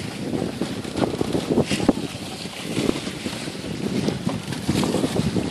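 Wind buffeting the microphone on a sailboat under way, with water rushing and splashing along the hull in choppy swells.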